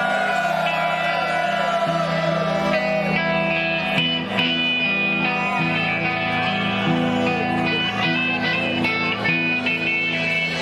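Live band playing a song, with guitar carrying it over sustained held notes.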